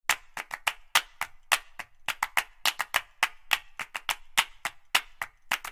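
Percussive intro music: a quick, uneven pattern of sharp, dry clicking hits, about four a second, with no melody or voice.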